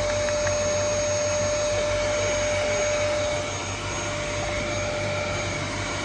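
Dyson canister vacuum cleaner running steadily, a rushing of air with a thin, steady whine on top; it eases slightly a little past halfway.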